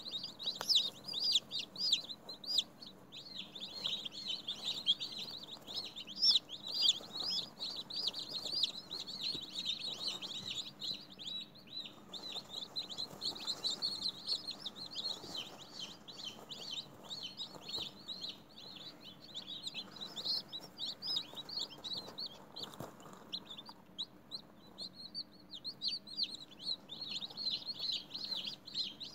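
Newly hatched chicks peeping nonstop, many short high chirps overlapping in a dense chorus, with a brief lull about eleven seconds in.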